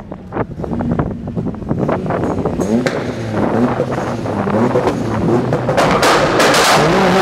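A Nissan 180SX's engine and exhaust: several throttle blips rising and falling in pitch as the car rolls slowly, with sharp cracks among them. It builds to a loud, hard rev about six seconds in.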